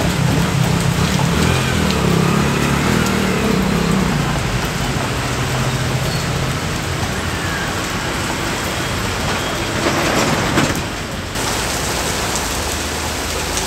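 Heavy rain pouring down on a paved street and parked cars, with traffic driving on the wet road. An engine hum sits under the rain in the first few seconds, and the rain noise swells briefly about ten seconds in.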